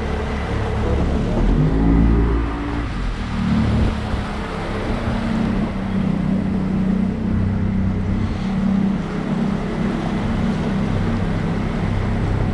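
Boat motor running steadily under way, its note rising briefly about two seconds in.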